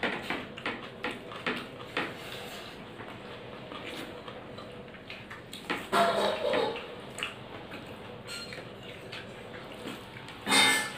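Close-up eating sounds: fingers squishing and mixing rice and curry on a plate, with small wet clicks and smacks, a louder mouth sound about six seconds in, and a brief loud clatter near the end.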